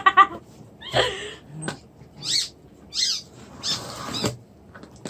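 Puppy whining and whimpering in a series of about five short, high-pitched calls, several sliding down in pitch.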